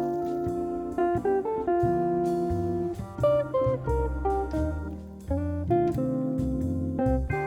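Background music led by a plucked acoustic guitar, with a bass line under a melody of short changing notes.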